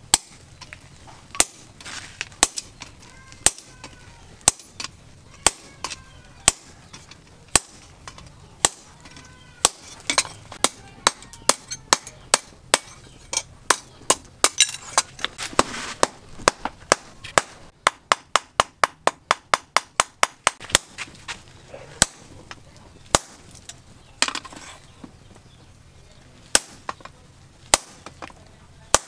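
Hand hammers striking a red-hot steel bar on a steel stake anvil: sharp metallic blows about one a second, quickening into faster runs around the middle with a rapid series of lighter taps, then slowing to about one a second again.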